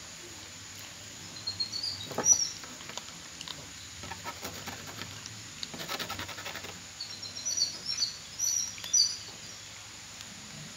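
Two cats chewing dry kibble, crunching in quick crackly clusters. Small birds chirp in short bursts of high notes near the start and again toward the end.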